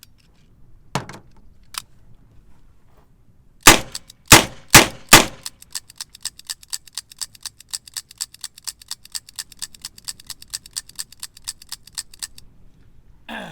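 Smith & Wesson Model 547 9mm revolver firing four loud shots about half a second apart, after a couple of light clicks, then a fast, even run of faint ticks lasting several seconds. Not every round goes off: two are left with dented primers, the light primer strikes that the owner blames on the gun's cylinder leaf springs.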